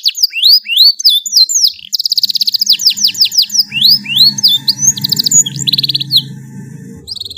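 Domestic canary singing a long song. It alternates rapid rolling trills of identical notes with single upward-sweeping whistles, then pauses briefly near the end.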